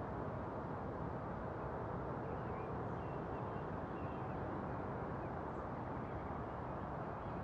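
Steady outdoor background noise, a low even rumble such as distant traffic, with a few faint bird chirps in the middle.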